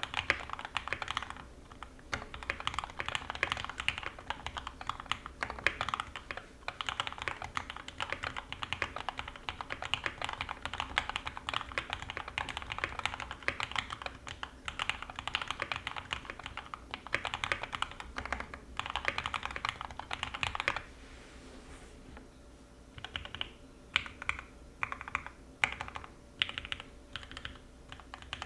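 Typing on an NK65 Aluminum 65% mechanical keyboard with lubed and filmed Gateron Ink Black linear switches, an aluminum plate and PBT keycaps. Fast, continuous typing stops for about two seconds late on, then resumes in short separate bursts of keystrokes.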